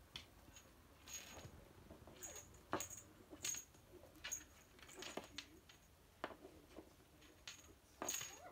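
Kitten playing with toys on a wooden floor: irregular taps, knocks and scuffles, several with a small metallic jingle.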